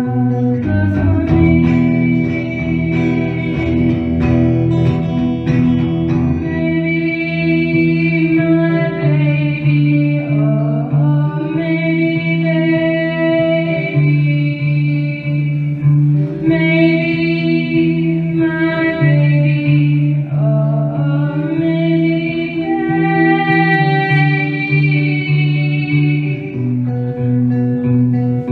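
Live post-punk/folk song: a cyclical guitar figure with a voice singing dreamy phrases over it from about six seconds in.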